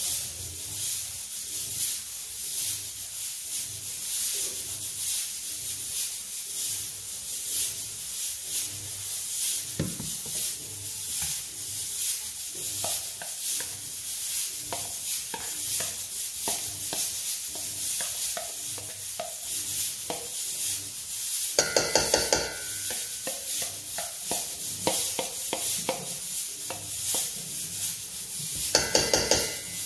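A spoon scraping and stirring mayonnaise into a salad in a stainless steel mixing bowl, a continuous soft scraping with many small ticks. Two louder, ringing scrapes against the metal bowl come about two-thirds of the way in and near the end.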